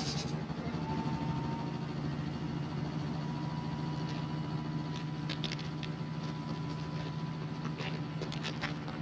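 A steady low mechanical hum, with a faint thin high tone over it. A few light clicks come about halfway through and again near the end.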